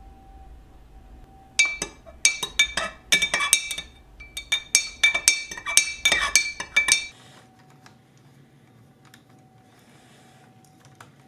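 Metal spoon stirring coffee in a glass mason-jar mug, clinking rapidly against the glass with a ringing tone. The clinking starts about a second and a half in and stops after about five and a half seconds.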